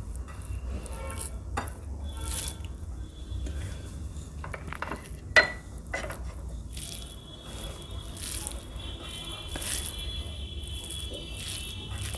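Bare hands working cooked rice and food on a plate, with soft squishing, patting and scraping, and one sharp clink of a glass lid a little over five seconds in.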